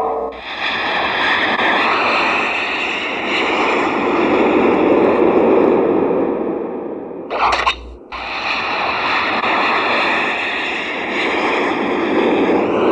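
Loud, steady jet-like rushing roar with a few steady tones riding on it, a film sound effect. It breaks off for a moment with a short burst about seven and a half seconds in, then carries on.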